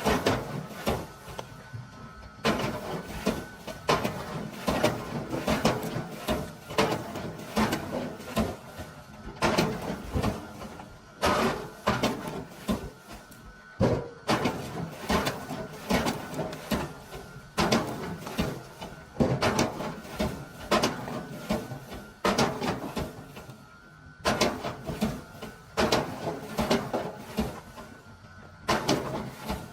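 Firewood-processing machinery running, with many irregular knocks and clatters of wood pieces over a faint steady whine.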